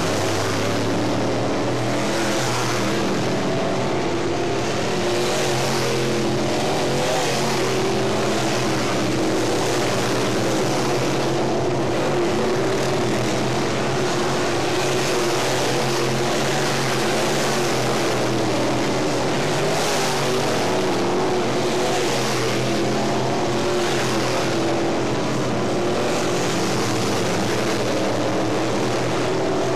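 A pack of dirt late model race cars running at speed around the oval. Their high-revving V8 engines make a continuous drone that swells every couple of seconds as cars pass.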